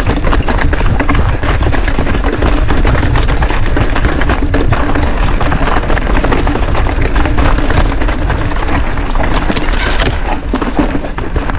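Mountain bike ridden over a rocky, stony trail: a dense, continuous clatter of knocks and rattles from tyres and bike over a steady low rumble.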